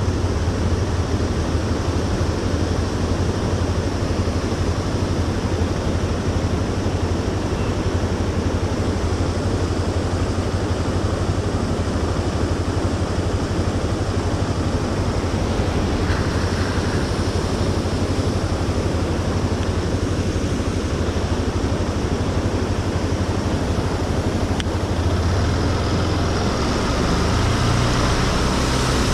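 Motorcycle engine running steadily as the bike is ridden, with an even hiss over it; the engine gets a little louder near the end.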